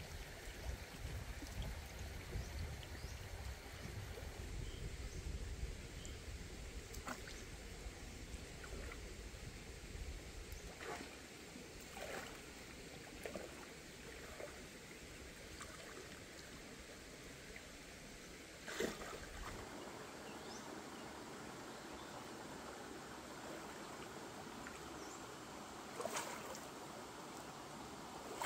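Shallow stream water sloshing and splashing as someone wades through it, over steady flowing water. A few short, sharp splashes stand out, the loudest about two-thirds of the way in and again near the end. A low rumble runs under the first third.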